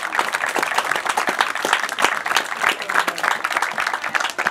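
A crowd of spectators applauding, with many hands clapping steadily.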